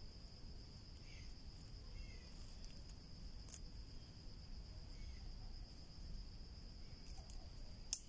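Faint, steady high-pitched drone of insects, one unbroken tone, over a low rumble, with a sharp click near the end.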